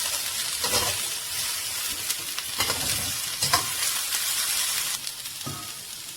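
Chopped vegetables sizzling in hot oil in a pan, with a spatula scraping and stirring them about once a second.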